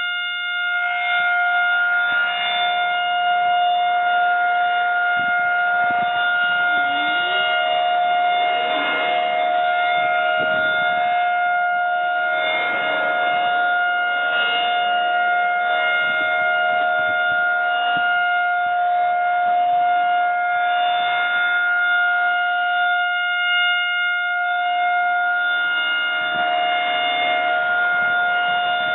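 Federal Signal Model 2001 electromechanical rotating siren sounding its steady alert signal: one held tone at a constant pitch that fades and comes back about every twelve seconds as the siren head turns.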